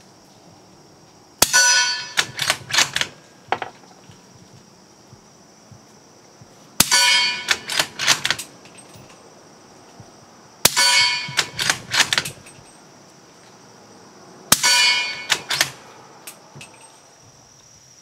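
Four suppressed shots from a Ruger American Ranch bolt-action rifle in 300 AAC Blackout, firing subsonic 220-grain ammunition through a Tactical Solutions Karma suppressor. Each short crack runs straight into the loud ringing clang of the bullet hitting a steel target. A few metallic clicks follow each shot as the bolt is worked.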